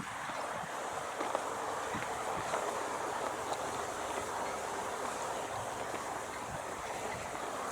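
Steady outdoor background noise, a hiss and rumble with a few faint clicks.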